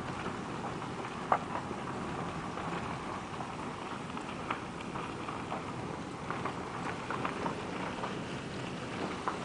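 Steady running noise of a vehicle driving slowly on a quarry's dirt road, with scattered small clicks and one sharper knock about a second in.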